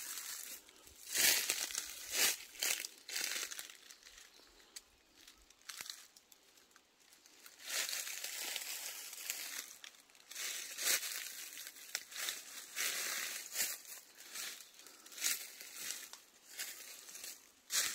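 Footsteps crunching and rustling through dry fallen leaves and low undergrowth, at an irregular pace.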